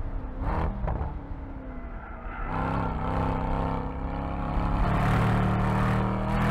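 Mercedes-AMG E63's 4.0-litre twin-turbo V8 under throttle as the car drifts, its revs wavering at first. From about two and a half seconds in the engine note grows louder and climbs, holding at high revs near the end.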